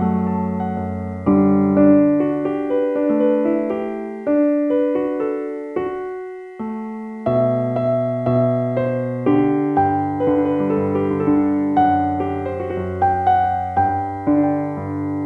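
Slow, calm piano music: single notes and chords struck one after another, each ringing and fading before the next.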